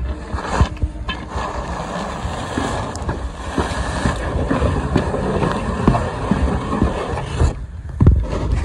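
Push broom shoving wet snow along a paved path, the bristles scraping over the pavement in a run of uneven strokes, with a louder knock near the end.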